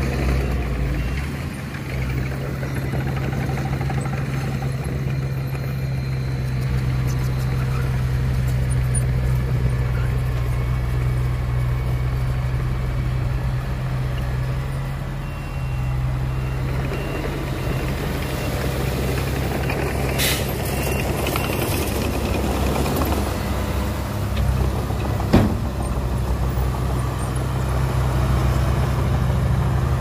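Heavy diesel engine running steadily at a low, even drone. About two-thirds of the way through there is a short hiss, and a little later a single sharp knock, the loudest sound here.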